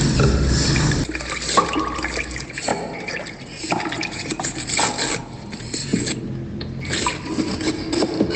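Water moving and splashing in irregular bursts, with a low rumble under it for the first second.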